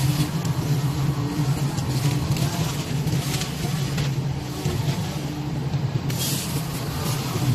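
Wheeled excavator's diesel engine running steadily, with a few short bursts of hissing over it.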